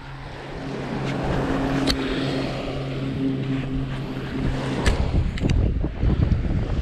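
A steady low engine drone that stops about five seconds in, over wind buffeting the microphone, with a couple of sharp knocks from the phone being handled.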